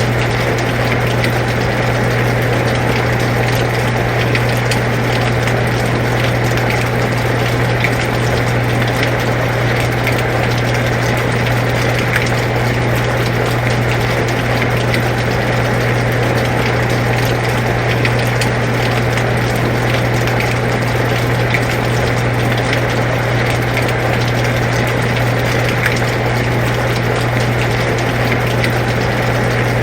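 Air conditioner running with a steady low hum, mixed with the even hiss of falling rain and faint scattered drop ticks.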